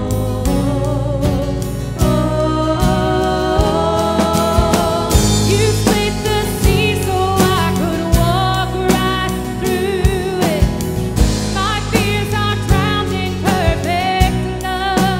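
Live worship band playing a contemporary worship song: a woman sings the lead melody over drum kit and acoustic guitar, with drum hits keeping the beat.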